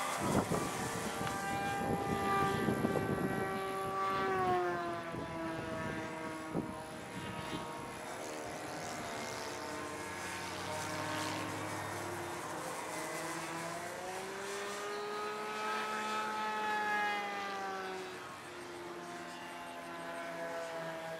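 Electric motor and propeller of a 59-inch RC biplane in flight: a steady whine that rises and falls in pitch several times as the throttle changes and the plane passes. Wind rumbles on the microphone for the first few seconds.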